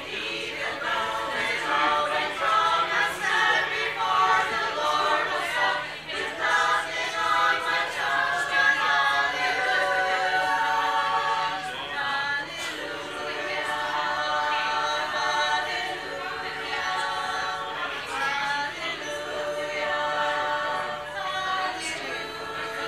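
Women's a cappella choir singing in harmony, several voice parts holding and moving through sustained notes together.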